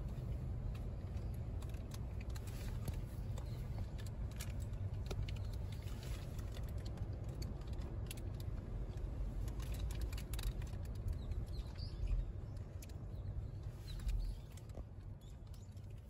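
Outdoor street ambience: a steady low rumble, with scattered light clicks and taps and a few faint chirps. It grows quieter near the end.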